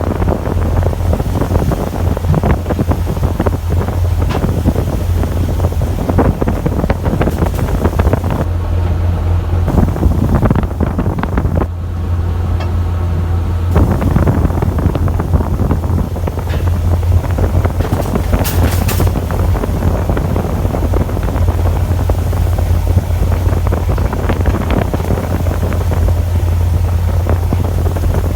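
Fishing boat's engine running steadily as a constant low hum, with wind buffeting the microphone.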